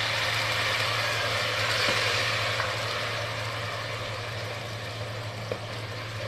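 Vinegar sizzling in a pot of hot oil with garlic, chili flakes and sugar as it is stirred. The sizzle is loudest about two seconds in and slowly dies down, over a steady low hum.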